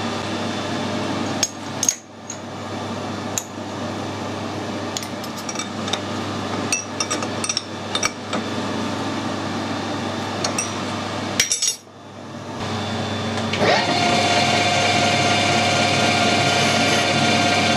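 Metal lathe: clinks and sharp knocks of metal tools as the workpiece is set and clamped in the collet chuck, over a steady shop hum. About thirteen seconds in, the lathe spindle starts, rising in pitch and settling into a steady running whine.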